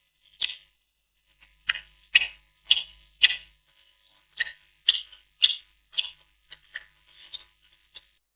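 Close-miked chewing of spicy noodles: short, crisp, wet mouth sounds, roughly two a second, getting quieter and more scattered near the end.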